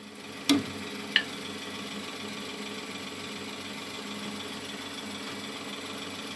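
A utensil knocks twice against a cooking pot about half a second and a second in, then a steady low hum carries on.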